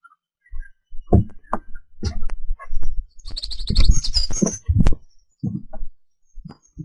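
Irregular knocks and low rumbles, with a bird's fast, high trill lasting about a second, some three seconds in.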